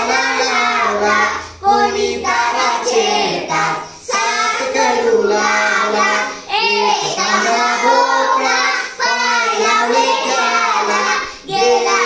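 A group of young schoolchildren singing a Marathi poem in unison, in short lines of about two seconds each with brief pauses for breath between them.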